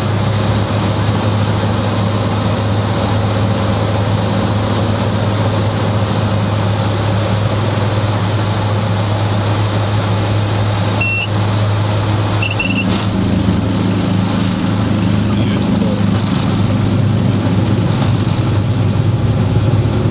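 Cirrus SR22's six-cylinder piston engine and propeller droning steadily in the cockpit through approach and landing. Near the middle come a few short high beeps and a knock, as the plane touches down.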